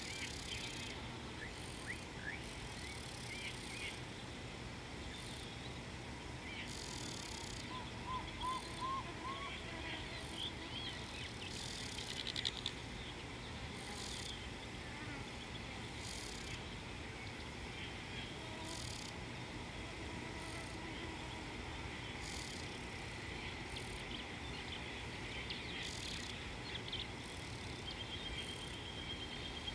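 Bush ambience: insects droning steadily at a high pitch, with short bird chirps now and then, among them a quick run of four rising notes about eight seconds in.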